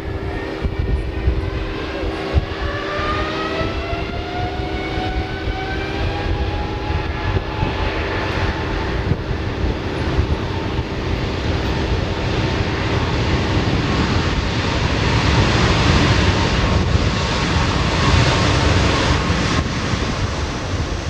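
Airbus A330-941 jet engines (Rolls-Royce Trent 7000) spooling up: a whine rising in pitch over several seconds, then a steadily growing roar of high thrust, typical of the start of a takeoff roll.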